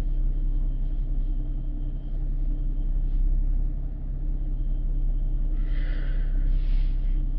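Chevrolet Camaro 3.6-litre V6 idling steadily at about 640 rpm, with a short hiss about two-thirds of the way through.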